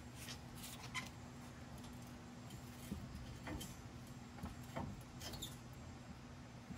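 Faint scrapes and a few light clicks from the Jeep's rear coil spring shifting and tipping out of its seat as the rear axle is lowered, over a steady low hum.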